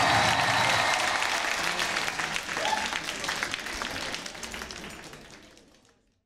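Audience applauding as the dance music ends about a second in; the clapping fades away near the end.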